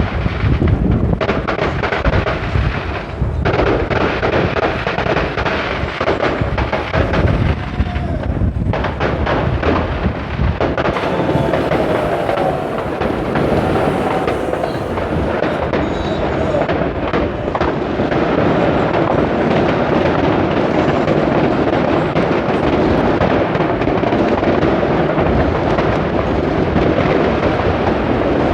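Fireworks going off all around in a dense, continuous barrage: many overlapping bangs and crackles with no let-up.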